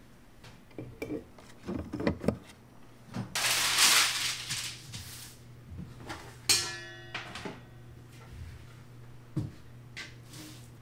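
Kitchen handling sounds: eggs and a wire egg basket knocking, dishes being set down, a two-second rush of noise in the middle, and a sharp clank about six seconds in that rings on for about a second. A steady low hum runs underneath.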